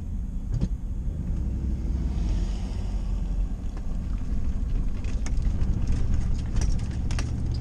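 Vehicle driving, heard from inside the cabin: a steady low road and engine rumble, with a few short clicks and rattles in the last couple of seconds.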